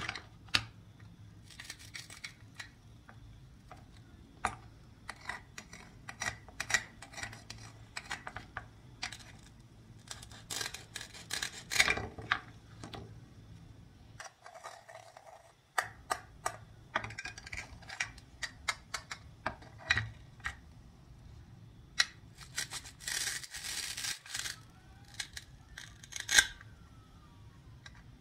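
Toy play-food being handled: hard plastic toy fruit halves and a wooden toy knife clicking, tapping and scraping against each other and a wooden cutting board in scattered light knocks. Near the end comes a longer rasping noise lasting about a second and a half.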